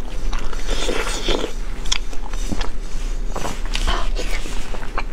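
Close-miked eating sounds: wet chewing and mouth noises from saucy fire-chicken instant noodles and a boiled egg, with a few sharp clicks of chopsticks on the plate.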